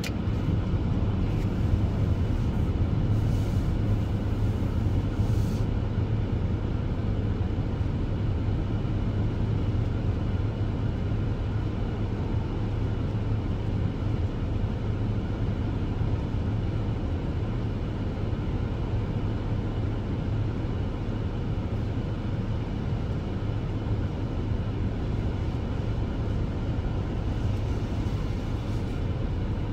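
Steady low rumble of an idling vehicle engine, heard from inside a car, unchanging throughout.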